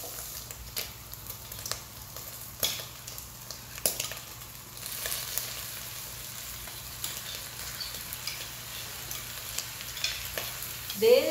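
Diced bacon and calabresa sausage sizzling as they fry in a pot, with scattered sharp clicks and scrapes of utensils stirring and tipping chopped onion and garlic into the pot.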